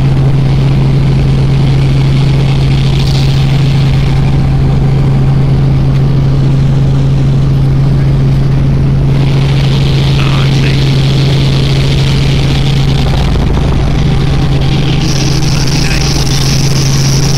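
Robinson R44 helicopter in flight, heard from inside the cabin: a loud, steady drone of rotor and engine with a strong low hum that does not change.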